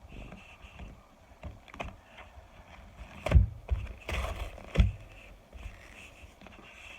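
A box of microwaved cornstarch being handled, with light rustling and a few sharp knocks and taps, the loudest about three and a half and five seconds in.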